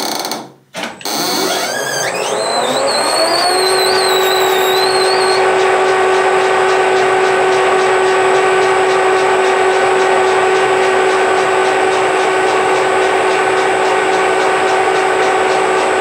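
Metal lathe spindle spinning down, then after a brief gap winding back up to speed over a couple of seconds and running on with a steady, high-pitched whine. A wavering high squeal rides on top for a few seconds as it comes up to speed.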